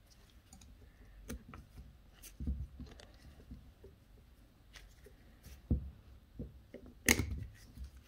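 Snap ring pliers and a steel snap ring clicking and tapping against a Denso clutchless A/C compressor's pulley as the ring is fitted into its groove over the pulley bearing. The light clicks are scattered, with the loudest cluster near the end.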